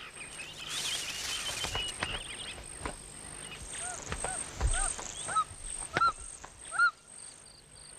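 Natural bush ambience: an insect trilling steadily at a high pitch, with twittering bird calls in the first two seconds. From about four seconds in comes a run of short arched bird calls, growing louder, with a few sharp snaps or knocks between them.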